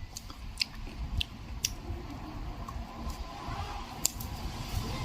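Someone chewing and gnawing the meat off a chicken leg bone, with a few sharp little clicks and crunches.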